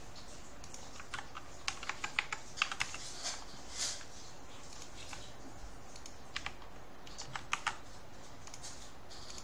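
Computer keyboard typing: quick clusters of key clicks in the first few seconds, then a few scattered taps, stopping nearly two seconds before the end.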